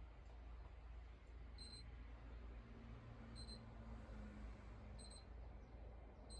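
Four short, high electronic beeps, evenly spaced about a second and a half apart, over a faint steady low hum.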